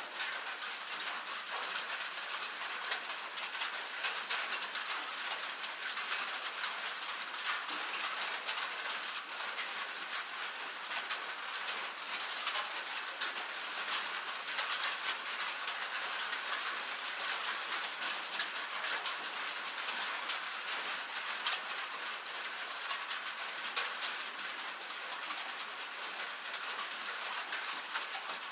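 Light rain falling on a metal roof: a steady, dense spray of tiny drop ticks with no low rumble.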